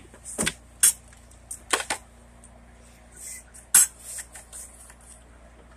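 Several short, sharp knocks and clatters from a backpack and small things being handled on a train seat's tabletop, over the steady low hum of the passenger car.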